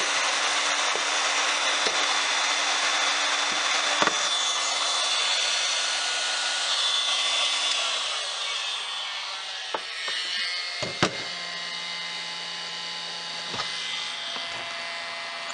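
Electric heat gun blowing steadily on high, melting the glue under a wooden glue block. About eight seconds in it drops to a quieter, lower setting, the low-speed cool-down run before switching off, with a few sharp clicks and knocks from the tools.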